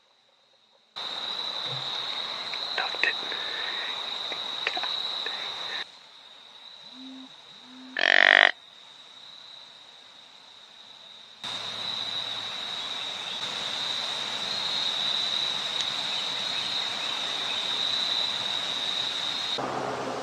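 Steady, high-pitched chorus of calling frogs in the woods, a single unbroken note over a hiss. About 8 seconds in comes one loud, short call.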